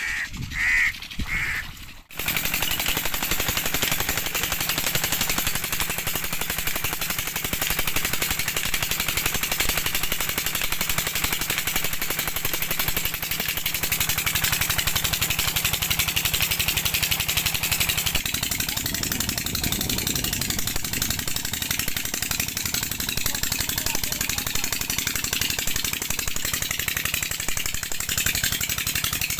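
Tubewell diesel engine running steadily with a fast, even chugging, over water gushing from the outlet pipe into the irrigation channel; it starts abruptly about two seconds in.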